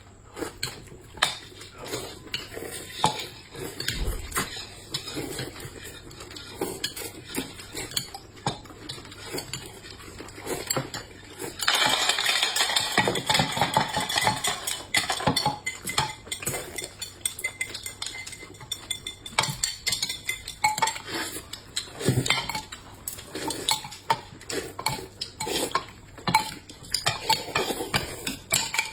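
Tableware clinking and scraping at a meal: cutlery knocking against bowls and plates in many short clicks, with a louder, denser stretch of clatter about twelve seconds in.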